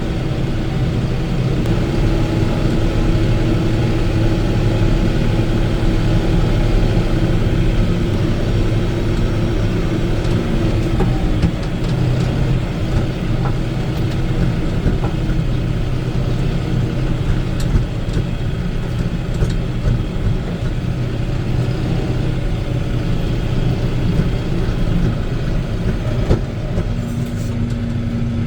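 Tractor engine running steadily as it drives, heard from inside the closed cab, with a few light clicks and rattles; a new steady hum joins near the end.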